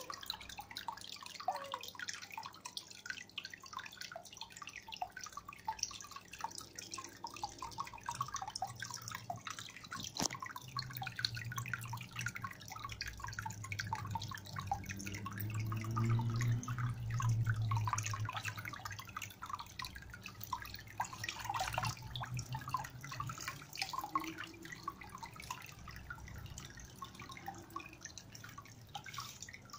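Water splashing and trickling at the surface of a newly filled Nano Cube 60 aquarium, where the running filter's outflow breaks the surface in a continuous patter of small drips. A low hum swells through the middle and fades.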